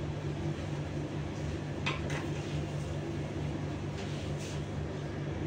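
Steady low hum of room tone, with a few faint brief ticks about two seconds in and again after four seconds.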